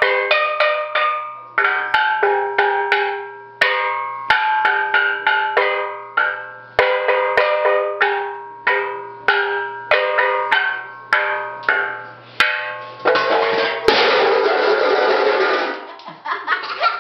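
Steel drum (steel pan) struck with mallets: a string of single pitched notes, each ringing out, then a fast, loud flurry of rapid strokes for about three seconds near the end.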